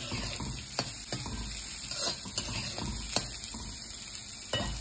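Sliced breadfruit sizzling in hot oil in a cheenachatti (Kerala wok), with a spatula stirring and scraping the pan and a few sharp clicks now and then.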